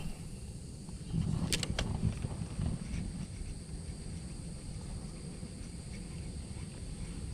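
Two sharp clicks from a spinning fishing reel, about a second and a half in, as the bail is closed after a cast. Low rumble of wind and handling on the body-worn microphone, with a faint steady high-pitched hum underneath.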